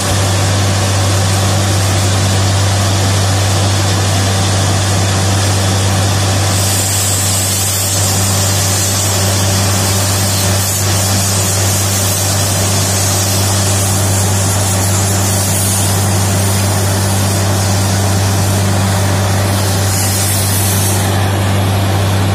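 Borewell drilling rig and its air compressor running flat out: a steady deep engine drone under the hiss of compressed air blasting water and slurry up out of the bore hole. The hiss turns sharper about a third of the way in, and again briefly near the end.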